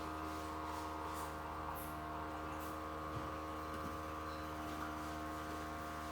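A steady, even hum of several held tones.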